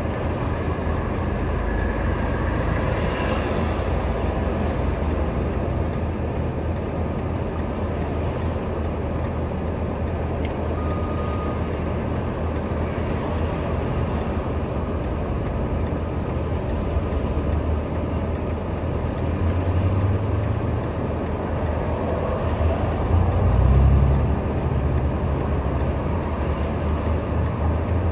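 Diesel engine of a CAT compact track loader working at low rumble, swelling louder about 20 and 24 seconds in, mixed with passing road traffic.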